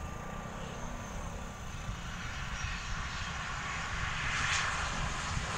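Twin-turboprop airliner's engines running at high power on the runway, growing steadily louder.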